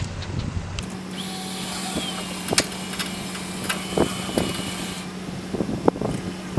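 Harbor Freight electric winch motor starting about a second in and running steadily as it hoists an ash log up into a log arch, with a few sharp clicks and knocks from the rigging and log.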